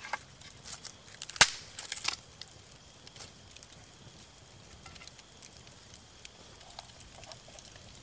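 Wood campfire crackling: a few sharp pops in the first two seconds, the loudest about one and a half seconds in, then sparse faint crackles.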